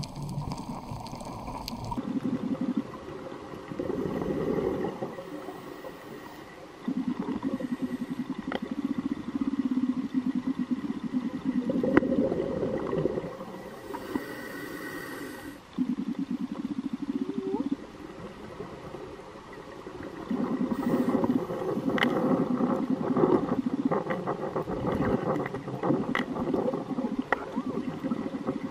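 Scuba diver's breathing heard underwater: gurgling bursts of exhaled bubbles from the regulator, each lasting a couple of seconds, coming every few seconds with quieter breaks between.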